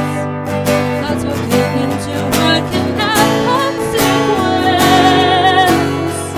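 Acoustic guitar strummed in a steady rhythm, with a woman singing over it; in the second half she holds a long note with vibrato.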